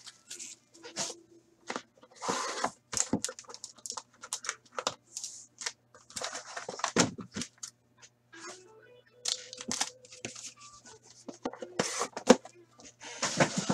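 Plastic shrink wrap being torn and crinkled off a cardboard trading-card box by hand, in quick irregular bursts of crackling, with the box lid handled.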